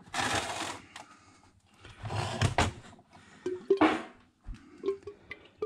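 Vintage Homelite chainsaw handled on a workbench and tipped over a paper paint filter in a fuel can to drain its tank: rustling and knocking in three bursts, with fuel starting to glug out in short gurgles near the end.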